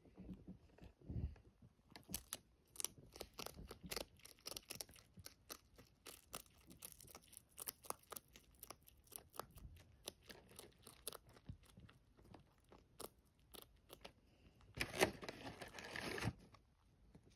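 A rabbit chewing a dried tangerine chip: many quick, dry crunches and clicks as it grinds the crisp slice. About fifteen seconds in there is a louder rustling stretch lasting just over a second.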